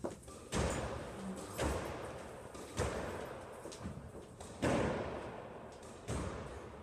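Squash ball struck back and forth on a squash court: about six sharp smacks of racquet and ball against the walls, a second or two apart, each ringing on in the court's echo.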